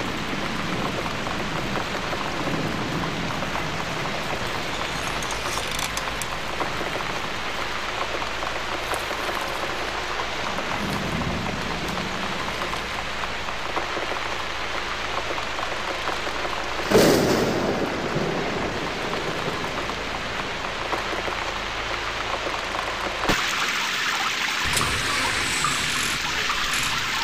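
Steady rain falling, with one sudden loud thunderclap about two-thirds of the way through that trails off over a second or two.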